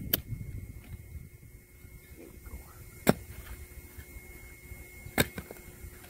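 Steel spade blade striking into dry soil and roots around a dead tree stump: three sharp strikes, the second about three seconds after the first and the third about two seconds later. A parked car's air conditioning hums faintly underneath.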